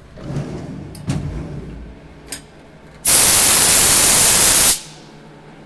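Compressed-air blow gun blasting chips off a machined aluminum part: one loud, even hiss lasting about a second and a half, starting about three seconds in and cutting off sharply. A few light clicks and knocks come before it.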